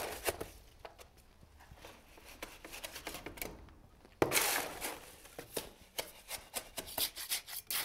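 Square-blade shovel scooping wet quick-setting concrete from a mortar tub and dumping it onto the floor, heard as short scrapes and knocks of the steel blade. A louder scrape starts suddenly about four seconds in.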